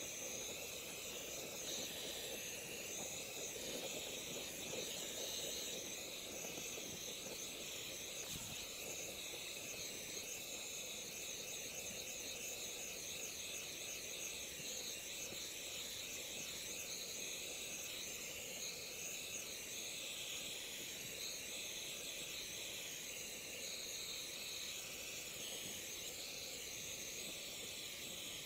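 Steady hiss of the flame melting scrap copper in a melt dish, even and unbroken throughout.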